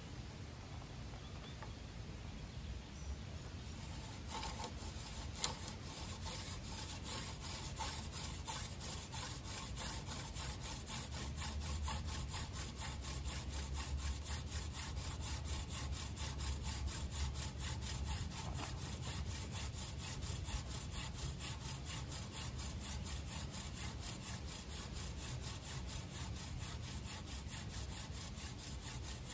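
Hand drill: a horseweed spindle spun between the palms on a Virginia pine fireboard, wood grinding on wood in a fast, even rhythm of rubbing strokes that starts about four seconds in. The drilling is in a pre-cut notch, going for an ember.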